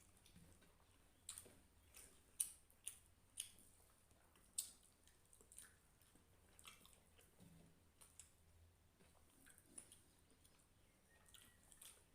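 Quiet eating sounds of a person chewing a meal of rice and hilsa fish curry: soft wet mouth clicks and squishes, with several sharper clicks in the first half that then thin out.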